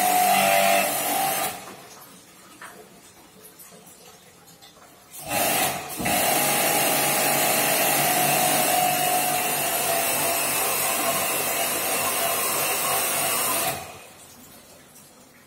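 Jet pump pressure washer running with its water jet hissing, in two stretches. It cuts off about 1.5 s in, starts again about 5 s in, and cuts off again near the end.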